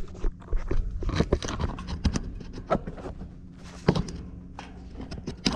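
Handling noise from a camera held against an old wooden chapel door: irregular clicks, knocks and scrapes over a low rumble, with one sharper knock about four seconds in.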